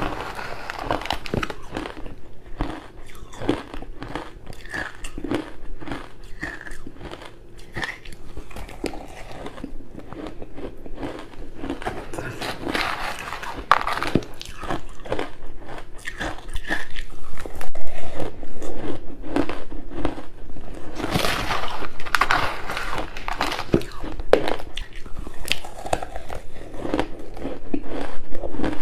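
Close-miked biting and chewing of crunchy ice: repeated sharp cracks and crunches as pieces are bitten and ground between the teeth, with louder bursts of crunching about halfway through and again past two-thirds of the way.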